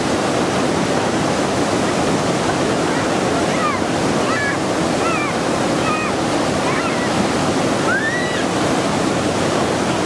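Waterfall rushing steadily. A few short high chirps come through over the middle of it.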